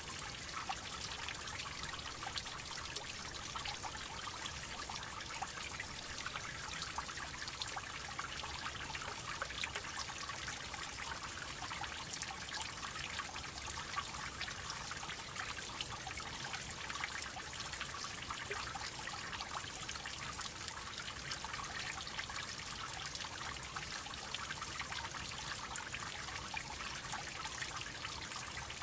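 Water droplets falling: a steady dense patter of many small drips blending into a trickle.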